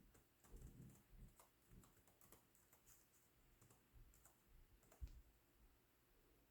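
Faint, irregular key clicks of typing on the HP Laptop 15-fc0025dx's keyboard, with one firmer tap about five seconds in.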